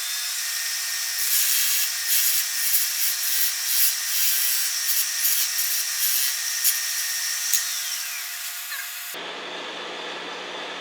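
Wood lathe running with a steady whine while a parting tool cuts into the spinning wood, a dense scraping that starts about a second in and eases off near the end.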